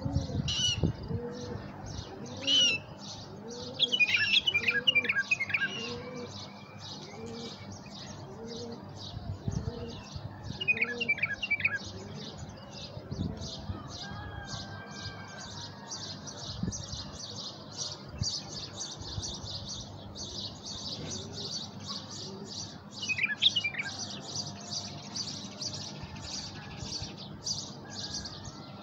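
Caged birds calling: continuous rapid high chirping, with a few short louder warbled song phrases from the decoy bulbul. A dove coos over and over, about twice a second, through the first half and then stops.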